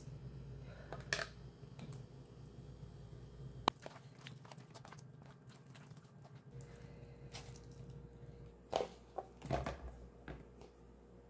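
Quiet food-preparation sounds: a metal spoon clicking against a plastic bowl as chermoula marinade is spooned onto raw cod, soft wet handling of the fish, then several dull knocks as peeled potato chunks are set into a metal pan near the end.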